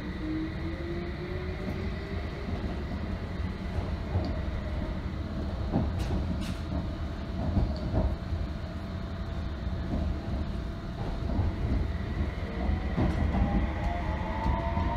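Inside a London Underground District Line S7 Stock carriage in motion: a steady rumble, a few clacks from the wheels, and a traction-motor whine that rises in pitch as the train picks up speed, in the first couple of seconds and again over the last few seconds.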